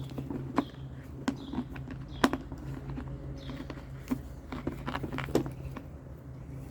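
Scattered light clicks and knocks as plastic vacuum housing parts and a screw are handled during reassembly, over a steady low hum.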